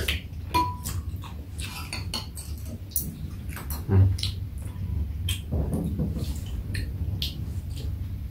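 Metal chopsticks and spoons clicking and scraping against bowls and a metal tray during a meal, with chewing and mouth sounds; a single short ringing clink sounds a little after the start.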